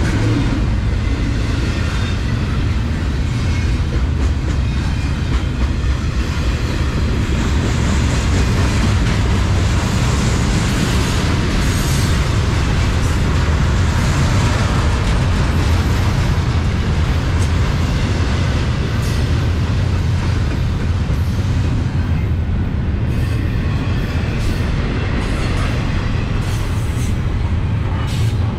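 Double-stack container freight train passing close by: a steady, loud rolling noise of steel wheels on the rails with a deep low rumble underneath.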